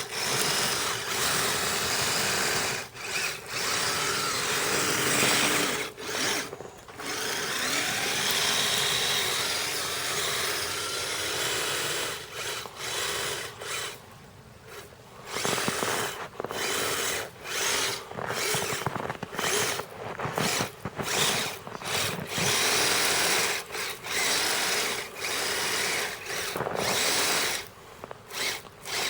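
Kyosho Blizzard SR radio-control snowcat's two electric motors and geared track drive whining in bursts. It cuts out and starts again many times as the throttle is worked, and goes quieter for a stretch a little before halfway.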